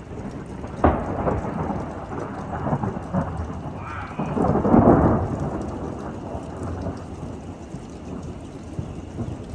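Close thunder in a heavy thunderstorm: a sharp crack about a second in, then a long rumble that swells again about halfway through and slowly dies away, over steady rain.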